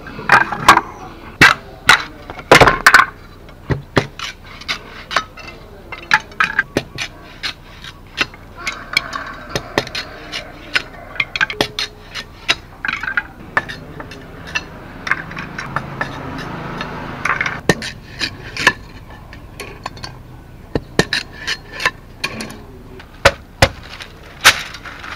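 Machete striking and splitting green bamboo: a long run of sharp, irregular cracks and taps, with a few seconds of softer continuous noise past the middle.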